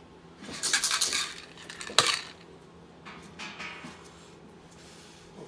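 Metal tins and the things in them being handled: a run of clinks and rattles, then one sharp clack about two seconds in, and fainter rattling after.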